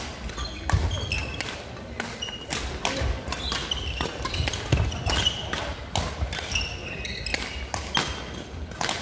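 Badminton rackets striking shuttlecocks and court shoes squeaking and thudding on a wooden sports-hall floor during a doubles rally, a rapid string of sharp hits mixed with short high squeaks.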